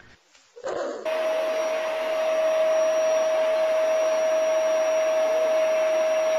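Steady whirring of an electric appliance motor with a constant mid-pitched whine, starting up about a second in.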